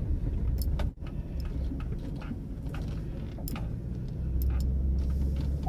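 Car running on the road, heard from inside the cabin as a steady low rumble, with a few scattered light clicks and rattles.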